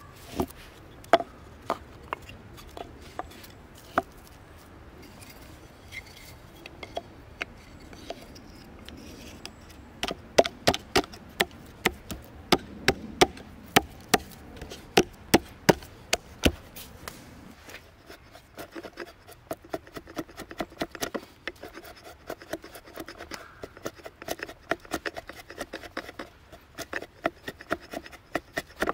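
Sharp wooden knocks, scattered at first and then in a dense run, as split wood pieces are fitted and wedged around a birch blank seated in a log bench. About two-thirds of the way in this gives way to quicker, softer repeated scraping strokes: a drawknife shaving the birch blank.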